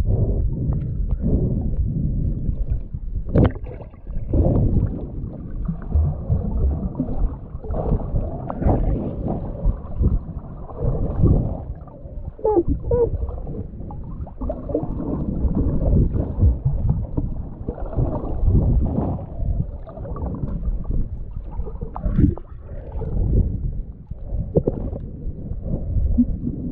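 Water and bubbles heard underwater with the camera submerged: a muffled, irregular sloshing and rumbling with bubbling, broken by a couple of sharp knocks.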